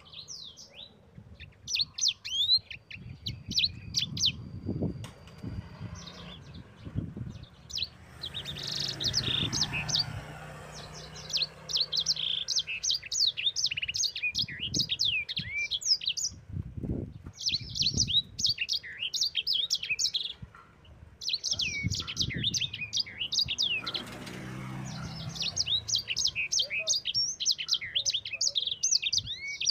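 Mozambique canary (sanger) singing long, rapid rolling runs of high chirps and trills, broken by short pauses. A few low thumps and rumbles sound underneath.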